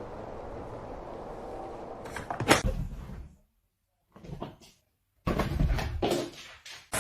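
A loud, sharp knock or bang about two and a half seconds in, after faint steady background hiss. A single short knock follows, then a quick cluster of loud knocks and clatter near the end.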